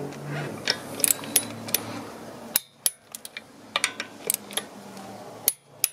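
Sharp metallic clicks and clinks of a socket and torque wrench on an alloy wheel's nuts, irregular and a dozen or so in all, as the nuts are tightened to 110 Nm.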